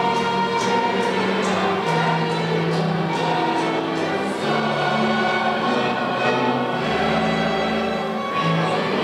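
A choir singing with instrumental accompaniment, in long held notes that change every second or so at a steady loudness.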